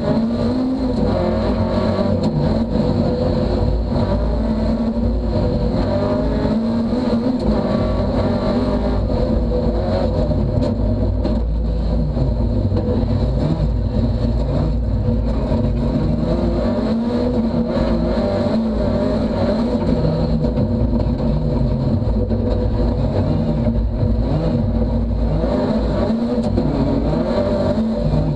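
Ford Fiesta rally car's engine heard from inside the cabin, revving hard and rising and falling in pitch many times as the car is driven through gear changes, braking and acceleration, over constant road noise.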